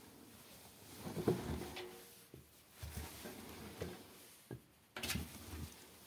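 Scattered knocks, clicks and rustling from handling at a front-loading washing machine, with a sharp knock about five seconds in.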